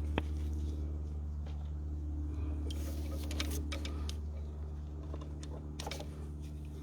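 A steady low hum runs under light clicks and ticks of small engine parts being handled. The clicks come as a cluster about three to four seconds in and again near six seconds.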